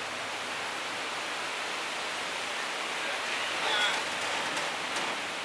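Steady hiss of a light rain shower falling, with a faint voice briefly about three and a half seconds in.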